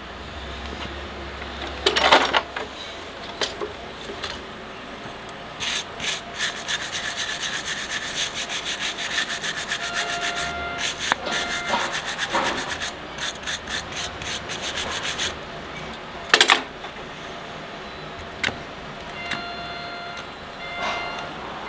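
A horse's hoof being worked with farrier's hand tools: a sharp scrape of the hoof knife paring the sole, then about ten seconds of quick, even scraping strokes across the hoof, about three a second, and another loud knife scrape after them.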